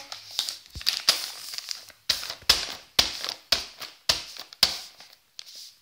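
A baby's hand slapping a plastic packet of wet wipes on a tabletop over and over, about two sharp slaps a second, thinning out near the end.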